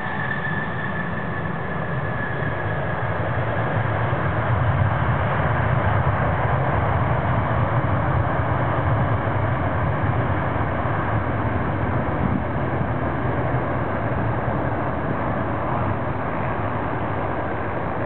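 Jet engines of a Boeing 737-800 rolling out on the runway just after landing, a steady rushing roar. A high whine at first fades away, and the noise swells a few seconds in, then slowly dies away as the aircraft moves off.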